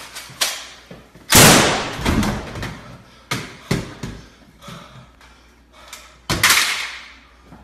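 A series of thumps and slams, with two loud crashes, one about a second and a half in and one near the end.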